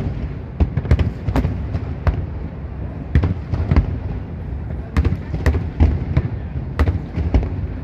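Fireworks display going off: an irregular run of sharp bangs and cracks, several a second at times, over a steady low rumble.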